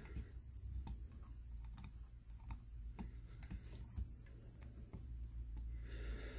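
Small, irregular metal clicks of a thin hex key working the screws of a brass QD bushing on a model engine's flywheel as they are tightened, over a low steady hum.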